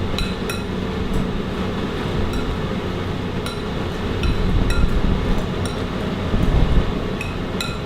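A spoon clinking against a mixing bowl at irregular intervals as a chunky salsa is stirred together, over the steady hum of kitchen ventilation.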